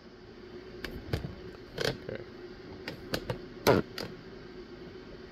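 Small metal tattoo-machine parts (cams and push bars) clicking and clattering as they are handled and set down, about nine sharp clicks at uneven intervals, the loudest near the middle, over a faint steady hum.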